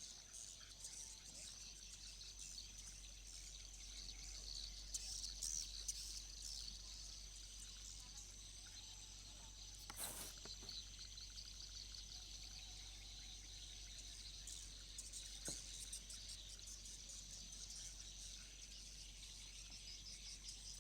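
Faint chorus of insects, a steady high-pitched buzzing, with scattered bird chirps; a single sharp click about ten seconds in.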